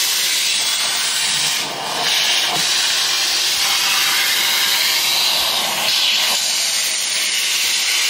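Atrix Omega HEPA pest vacuum running, air hissing steadily through its extension wand and crevice tool as the nozzle is worked along a wooden nightstand, with a couple of brief dips in the hiss about two seconds in.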